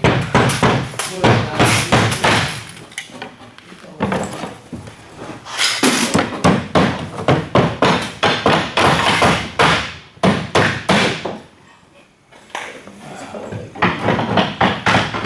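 Slater's hammers nailing roofing slates onto a practice roof deck: quick runs of sharp hammer strikes, several a second, broken by short pauses.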